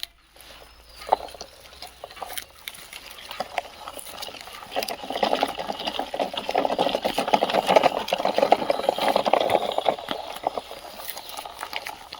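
Small rocks pouring and clattering in a dense, rapid patter of many tiny knocks. It builds up about four seconds in and dies away near the end.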